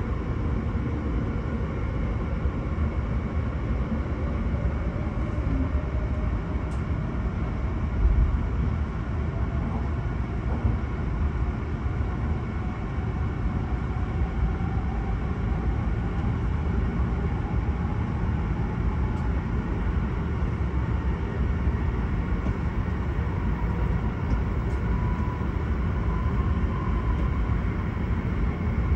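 Cabin noise of an E7 series Hokuriku Shinkansen pulling out of a station: a steady low rumble of running noise with a faint motor whine slowly rising in pitch as the train gathers speed.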